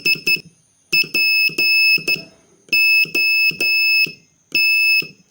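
Morse code tone sending the word SPOT: a high-pitched beep keyed as dit-dit-dit (S), dit-dah-dah-dit (P), dah-dah-dah (O), then one dah (T), with short gaps between the letters.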